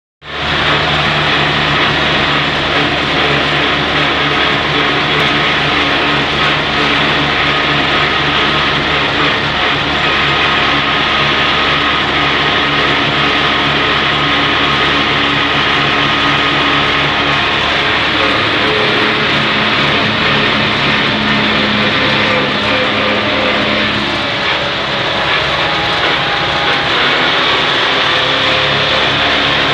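Steady running noise and engine drone heard from inside a moving vehicle, with a few low hum tones held over an even rush of noise.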